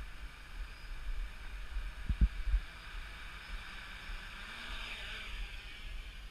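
Wind buffeting the microphone, with a few low bumps about two seconds in, over a faint steady hiss.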